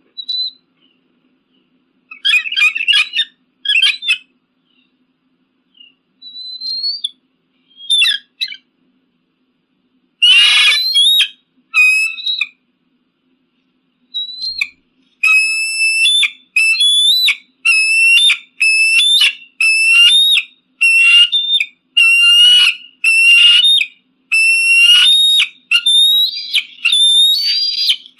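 Eagle calling: scattered high, whistled chirps, a harsh squawk about ten seconds in, then from about halfway a steady run of piercing whistled calls, roughly one a second.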